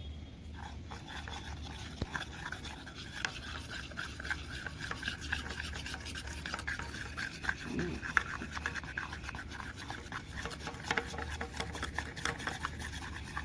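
Glue, water and colour being stirred in a container for slime: the stirrer scrapes and taps rapidly and steadily around the inside of the container.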